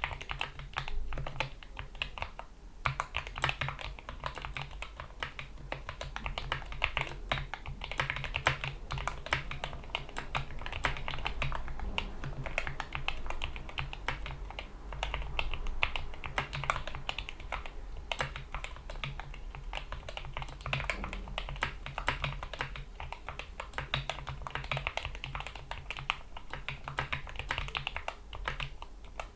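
Fast continuous typing on a GK61 mechanical keyboard with lubricated Gateron Yellow optical switches, PBT keycaps and rubber O-ring dampeners: dense, rapid key clacks.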